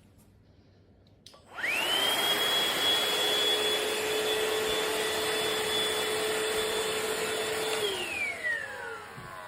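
Shark VacMop Pro cordless vacuum mop switched on with a click: its motor spins up with a rising whine and runs steadily with a loud rushing hiss. Near the end it is switched off and winds down with a falling whine.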